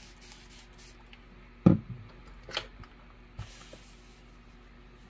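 A hand-pump spray bottle spritzing the fabric block a few times in quick succession. About a second and a half in comes a loud thump, the iron being set down on the wool pressing mat, then a couple of lighter knocks of handling.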